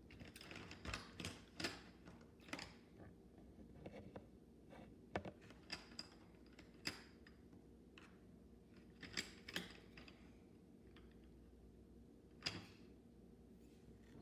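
Faint, irregular clicks and short rustles of small objects being handled, about a dozen spread out, the most distinct a little after the middle and near the end.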